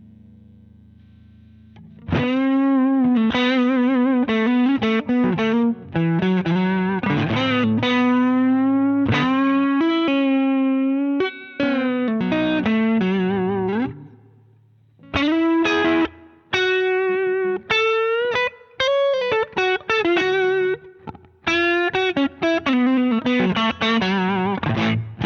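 Electric guitar played through a Danelectro Transparent Overdrive V2 pedal, giving a lightly driven, slightly compressed tone. After a faint hum for about two seconds, single-note lead lines begin, with wide vibrato and a string bend. A brief pause about halfway is followed by faster phrases.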